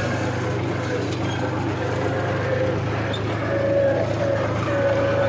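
Tractor diesel engine running steadily as it is driven, heard from the driver's seat.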